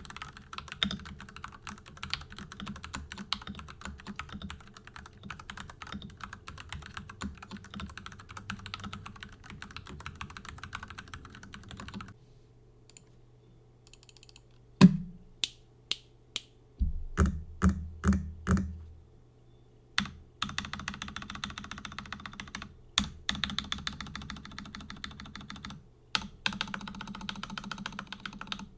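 Typing on a Ducky ZERO 6108 mechanical keyboard with stock Cherry MX2A Red linear switches: a fast, steady stream of key clacks, a short pause about twelve seconds in, then a handful of single, louder and deeper key strokes before fast typing resumes.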